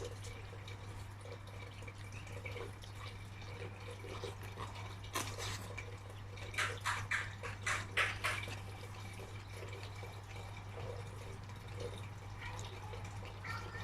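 Wet biting and chewing of a whole orange, peel and all: a sharp bite about five seconds in, then a run of about eight crunchy chews. A steady low hum runs underneath.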